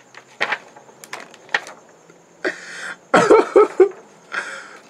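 A man laughing: breathy huffs and gasps, with a short voiced laugh about three seconds in.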